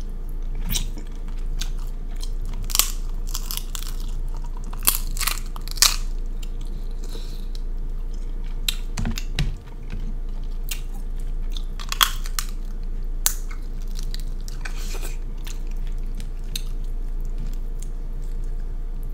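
Close-miked eating of king crab legs and seafood: chewing and biting with sharp crunches and cracks of crab shell, scattered irregularly and bunched most densely about five to six seconds in and again around twelve seconds. A steady low hum sits underneath.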